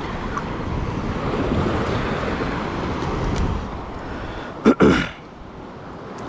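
Wind buffeting the microphone over the rushing and lapping of surf water around a wading angler. Two short, loud bursts come about three-quarters of the way through.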